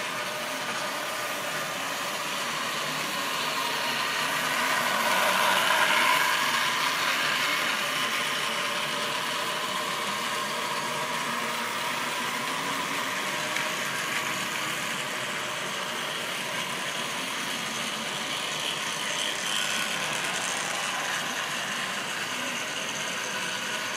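OO-gauge model train running on its track: a steady mechanical rattle of wagon wheels on the rails. It swells to its loudest about six seconds in as the train passes close.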